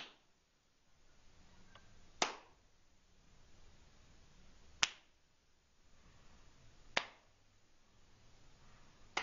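Finger snaps, sharp and single, one every two to two and a half seconds, with faint room hiss between them.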